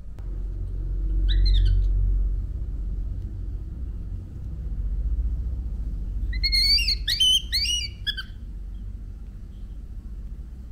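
Baby monkey giving high-pitched squeaky calls: one short falling call about a second and a half in, then a quick string of falling squeals around six to eight seconds in. A low rumble runs underneath.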